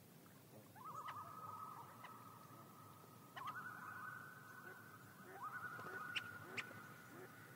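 Common loons giving tremolo calls: three faint, quavering, laugh-like trills in a row, the first starting about a second in and the next two following almost without a break.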